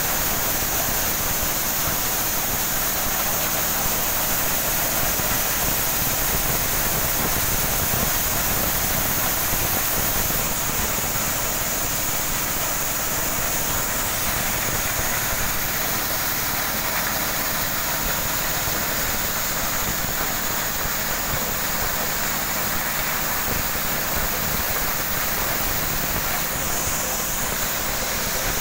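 Motorised corn sheller running steadily under load, its small stationary engine droning under a constant rushing clatter of cobs and kernels through the threshing drum.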